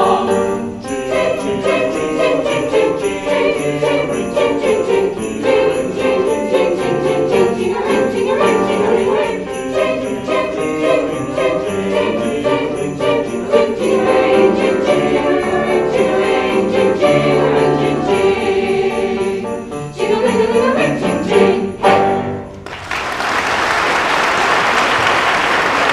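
A choir and ensemble performing a Christmas song, with sleigh bells jingling steadily throughout. About 23 seconds in the music ends and the audience applauds.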